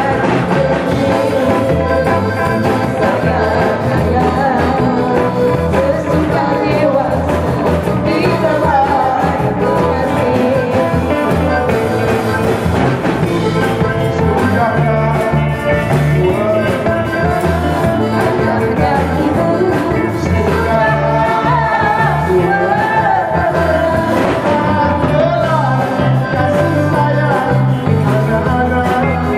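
Live band playing a song: a woman singing lead over electric guitar, bass guitar and a drum kit keeping a steady beat.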